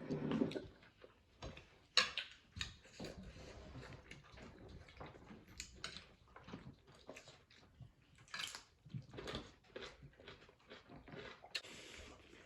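Close-up eating sounds: chewing and mouth noises with scattered sharp clicks and taps, the loudest about two seconds in.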